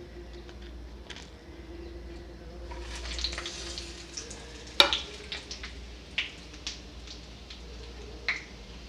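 Tadka being made: whole spices (dried red chillies, bay leaves, panch phoron and black mustard seeds) frying in hot mustard oil in a metal kadhai. A low sizzle grows louder about three seconds in. A sharp clack comes about halfway through and scattered clicks follow as a metal spatula stirs the spices.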